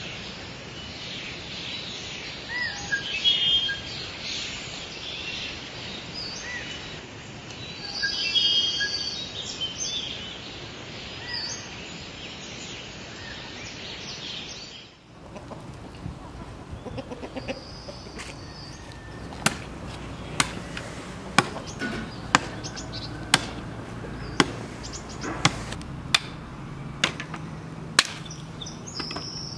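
Birds chirping and singing over a steady outdoor background. In the last third come about ten sharp knocks, roughly one a second, as dry sticks are chopped with a sickle.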